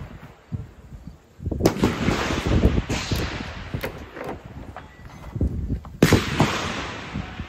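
Two rifle shots from a scoped bolt-action 6.5 Creedmoor precision rifle, about four seconds apart, each followed by a long echo rolling back across the range.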